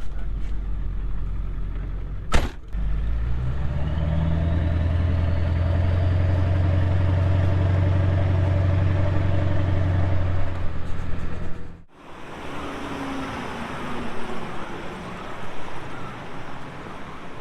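A vehicle engine picks up speed, its pitch rising, then runs steadily at speed. Near the end it gives way to a quieter, even rushing noise.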